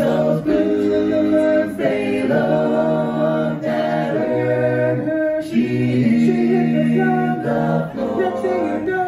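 Five-man barbershop-style a cappella group singing close-harmony chords, with no instruments. The voices hold each chord and shift to the next every second or so.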